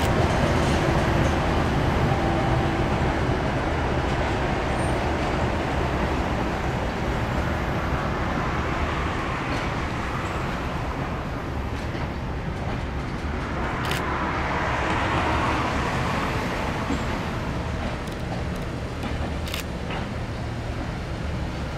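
Diesel train running steadily: a low, even engine drone under a rushing running noise that swells about two-thirds of the way through, with two brief sharp clicks.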